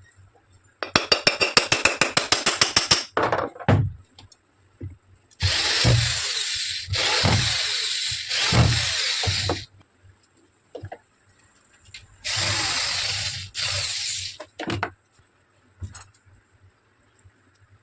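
A power tool running in several bursts of a few seconds each, after a quick run of rapid clicks, with a few single knocks in between, during work on a ceiling fan's bearing.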